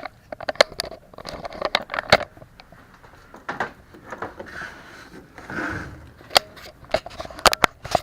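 Plastic turn signal bulb socket and bulb being handled: irregular sharp clicks and light scraping, busiest in the first two seconds and again near the end, with a short rustle in between.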